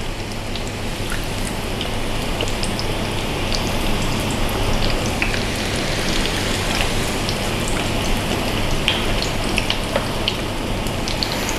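Battered onion rings deep-frying in a pan of hot oil: a steady sizzle with many small crackles and pops. It grows a little louder over the first few seconds as more rings go in.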